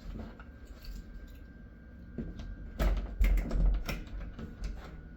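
Handling noise of a lanyard being slipped into a door latch: light rustling, then a cluster of clicks and knocks about three seconds in.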